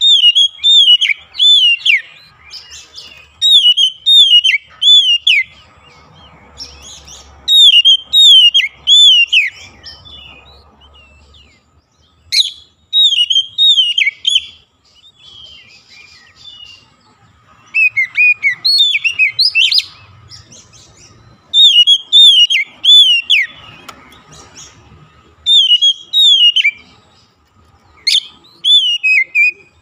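Oriental magpie-robin singing: loud whistled phrases of two to four quick notes, each sweeping downward, repeated every few seconds with short pauses between them.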